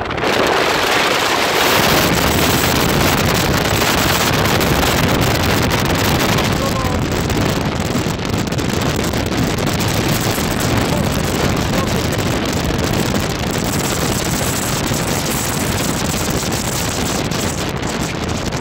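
Strong typhoon wind blasting the microphone over the surf of typhoon-driven high waves: a loud, steady rush with a heavy low rumble that builds in about two seconds in.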